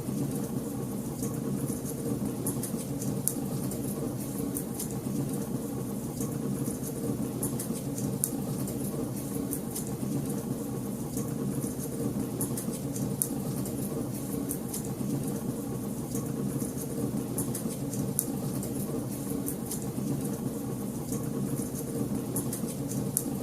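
Wood fire crackling in a fireplace: frequent small sharp pops and snaps over a steady low rumble of the flames.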